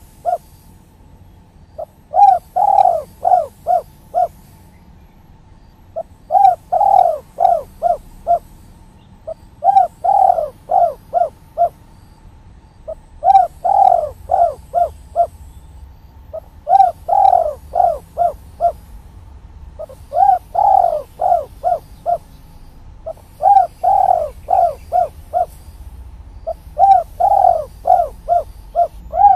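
Spotted dove (tekukur) singing its 'kuk 3' song. Its cooing phrases repeat about every three and a half seconds, each a stronger opening coo followed by a quick run of shorter coos.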